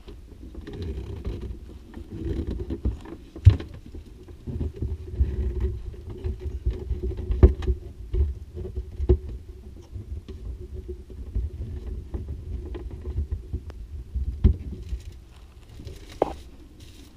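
Plastic reverse-osmosis filter cartridges being twisted and handled under a sink, with irregular sharp knocks of plastic against plastic, a short squeak near the end, and a steady rumbling handling noise close to the microphone.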